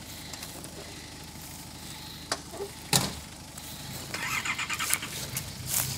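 Off-road vehicle's engine running low and steady, with a sharp knock about three seconds in. From about four seconds a gritty rattling noise builds over the engine.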